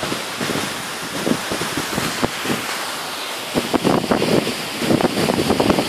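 Waterfall rushing as a steady roar of falling water, with rougher, uneven surges from about three and a half seconds in.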